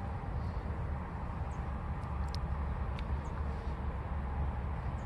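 Steady low outdoor background rumble, with two faint clicks in the middle and a few faint short high chirps.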